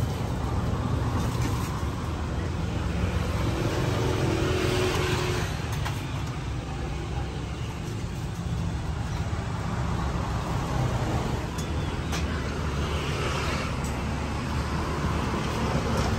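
Road traffic passing steadily, with vehicles swelling louder a few seconds in and again near the end.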